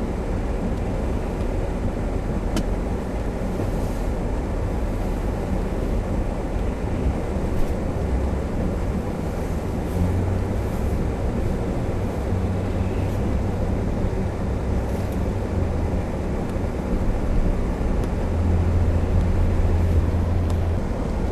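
A car being driven, heard from inside the cabin: the engine runs with a steady drone and the tyres rumble on wet pavement. The engine hum swells a few times, most strongly near the end.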